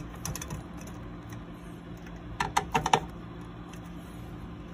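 A few faint ticks, then a quick run of about five sharp clicks about two and a half seconds in: a screwdriver working the screws of a CPU tower cooler's metal mounting bracket as they are tightened down.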